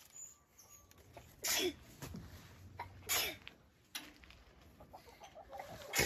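Domestic hens clucking, with two loud harsh squawks about a second and a half and three seconds in.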